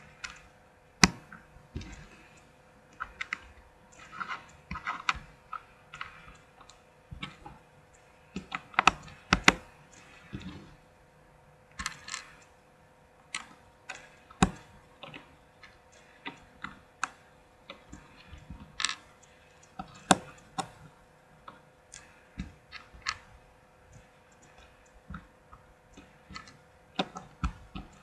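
Lego bricks being handled and snapped together: irregular sharp plastic clicks and clacks, some single and some in quick clusters, over a faint steady hum.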